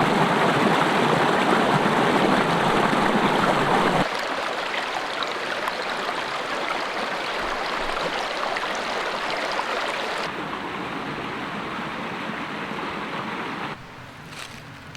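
Mountain creek water flowing: a steady rush, loudest for the first four seconds, then dropping in level abruptly a few times.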